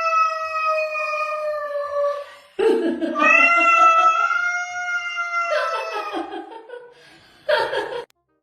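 A cat yowling: two long, drawn-out calls, the second dropping in pitch and trailing off, then a short cry near the end.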